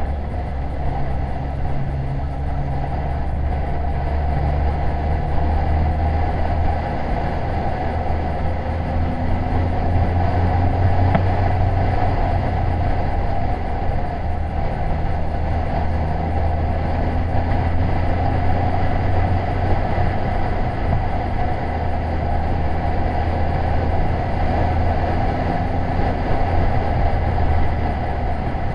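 A Yamaha FJR1300's inline-four engine runs at cruising revs, its pitch rising and falling slightly with the throttle. Over it sits a steady low wind rumble on the action camera's microphone.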